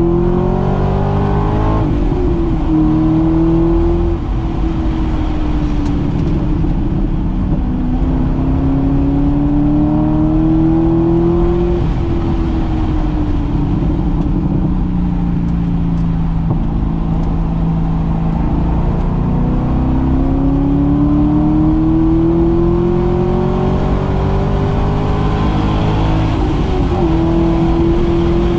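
2008 Corvette Z06's 7.0-litre LS7 V8 pulling hard under track acceleration, heard from inside the cabin. Its pitch climbs and drops back at each upshift of the manual gearbox, with a stretch in the middle where the pitch sags under lighter throttle.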